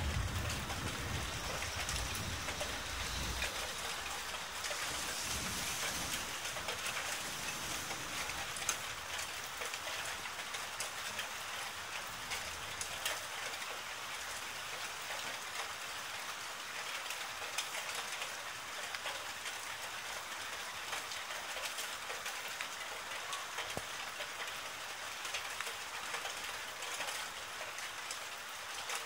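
Steady rain falling, with scattered sharper drop hits. A low rumble of thunder dies away over the first few seconds.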